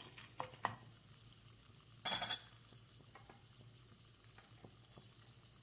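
Tempering of chana dal and mustard seeds frying in a little oil in a kadai over low heat: a faint crackle with scattered small pops. There are a couple of spoon clicks against the pan in the first second, and a brief louder noise about two seconds in.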